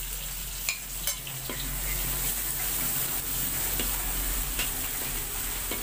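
Garlic, shallots and fresh tomato sizzling in hot oil in a metal wok, with a spatula clicking and scraping against the pan several times as the mixture is stirred.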